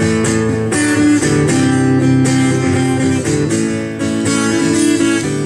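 Background music of a strummed acoustic guitar playing held chords.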